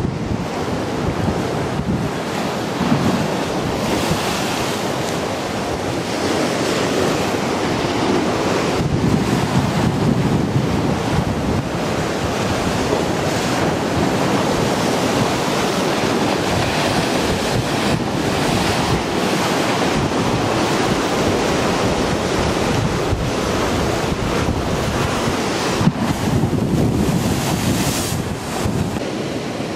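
Rough storm-surge sea: heavy surf breaking and churning against a seawall in a continuous rushing roar, with wind buffeting the microphone.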